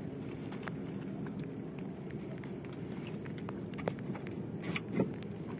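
Small wooden outrigger canoe rocking on the water: a steady low rumble of wind and water with scattered light clicks, and a few louder knocks against the hull a little before five seconds in as the fisherman reaches over the side.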